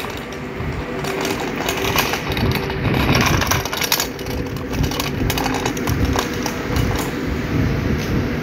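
Steady mechanical hum and noise of an electric train standing at the platform, with many short clicks and knocks from footsteps and the phone being handled as the person filming walks.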